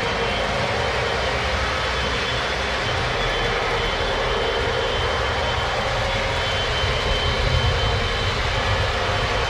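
Several Lionel O gauge model trains running on the layout at once: a steady rumble of motors and wheels on the track, with a faint high whine over it.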